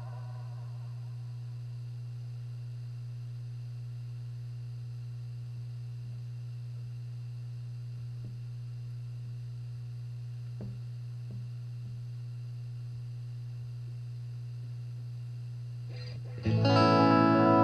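Steady guitar-amp hum as the wavering, modulated delay repeats of an EarthQuaker Devices Space Spiral die away at the start, with a few faint clicks as the pedal's knobs are turned. Near the end, a Squier Bullet Stratocaster is played suddenly and loudly through the pedal into a Fender Super Champ XD amp.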